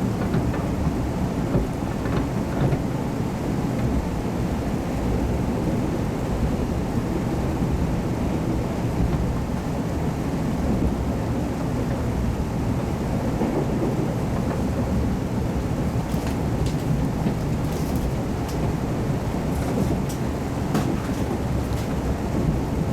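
Cabin noise of a KiHa 181 series diesel railcar under way: a steady low rumble of the running gear and diesel engine, with a few sharp ticks from the wheels and track in the latter part.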